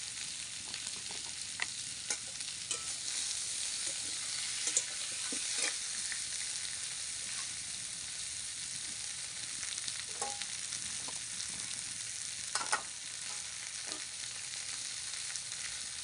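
Light clicks, taps and rustles as salt is shaken from a plastic bottle over sliced banana stem on a steel plate and a turmeric container is opened, over a steady background hiss.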